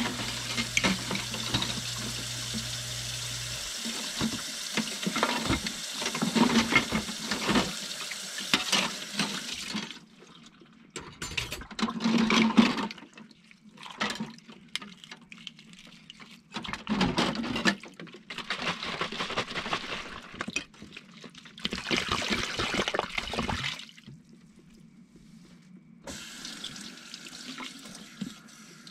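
Kitchen tap water running into a steel sink while dishes are rinsed under it. The flow is steady for about the first ten seconds, then comes in separate splashy bursts, and is quieter near the end.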